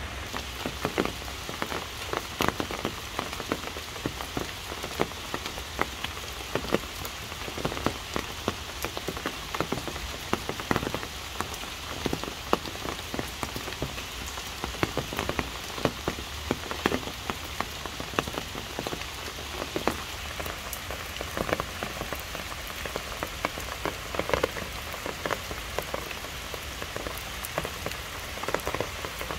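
Steady rain falling under trees onto leaves and a wet paved path, with many separate drop hits standing out from the even hiss.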